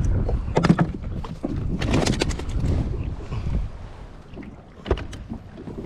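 Wind buffeting the microphone on a kayak at sea, with a few sharp clicks and knocks from handling a just-caught grouper and metal fishing pliers against the plastic kayak: about half a second in, a quick cluster around two seconds in, and again near the end.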